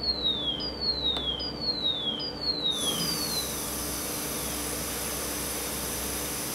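Underwater speaker in a test tank playing a repeating falling chirp, a bit more than one a second. About three seconds in the chirps fade away as air is blown through the aeration hoses, and a steady hiss of rushing air bubbles takes over: the bubble curtain is attenuating the speaker's sound.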